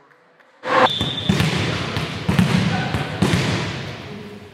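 A volleyball bounced on a wooden gym floor, about four thuds roughly a second apart, starting suddenly near the first second, each ringing on in the large hall.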